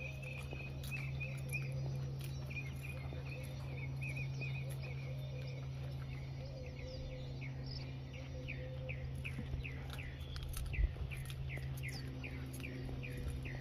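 Small birds chirping and singing: first a warbling song, then from about halfway a run of quick falling chirps, roughly two a second, over a steady low hum. A single thump about three-quarters of the way through.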